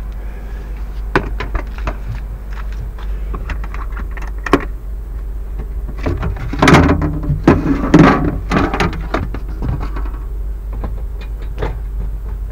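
Land Rover Defender seat box being opened: the seat frame and cover panel are lifted off the engine control unit compartment, giving scattered clicks and knocks and a louder stretch of rattling and scraping about six to nine seconds in. A steady low hum runs underneath.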